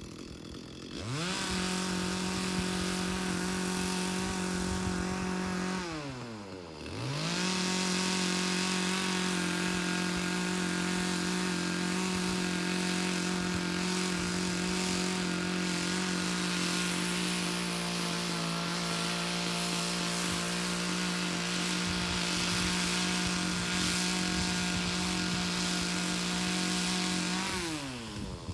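Chainsaw engine revved to full throttle and held steady while cutting through a raw log for mushroom cultivation. The throttle drops briefly about six seconds in, then comes back up for a long steady cut of about twenty seconds before easing off near the end.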